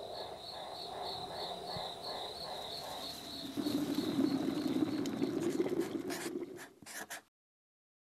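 Outdoor ambience of birds and a high chirp pulsing about four times a second. About three and a half seconds in, leaves are rustled up close, louder, until the sound stops suddenly about seven seconds in.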